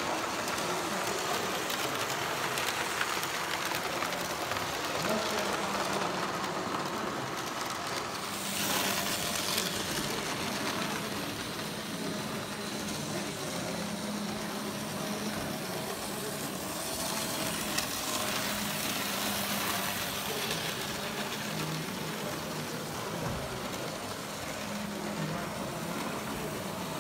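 Triang TT gauge model trains running, with a low electric-motor hum that comes and goes, over indistinct background voices and steady hall noise.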